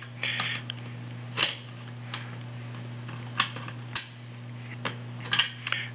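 Scattered light metallic clicks and taps, the loudest about a second and a half in, from a metal stove-cord clamp being handled against the range's sheet-metal cord bracket. A steady low hum runs underneath.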